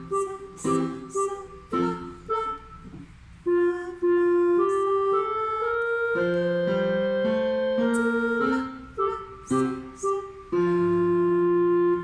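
Yamaha Electone two-manual electronic organ played with both hands on a clarinet voice. Short separate notes give way to a stretch of held notes, then short notes again, and the piece closes on a long held chord.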